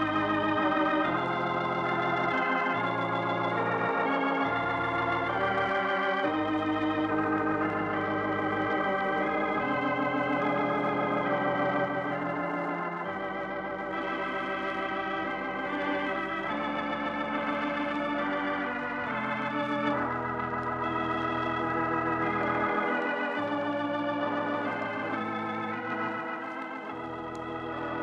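Organ music: sustained chords with a wavering vibrato, shifting every second or two, as the closing theme of a 1950 radio transcription.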